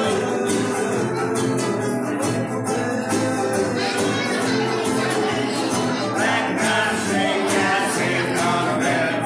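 A ukulele band playing live: many ukuleles strumming together with an acoustic guitar in a steady, upbeat rhythm.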